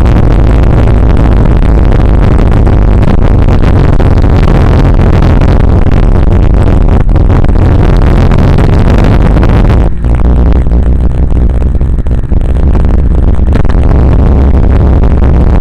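Loud, clipping wind buffeting and road rush on the microphone of a camera riding on a moving vehicle, over a low steady drone. The hiss eases somewhat about ten seconds in as the ride slows.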